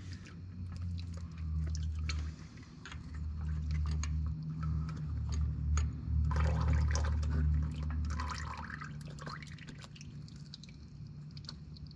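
Fingers working an oily rubber seal onto a tractor's brake actuator rod: wet squelching and rubbing with small clicks, over a low rumble of handling noise. It is loudest through the middle and fades toward the end.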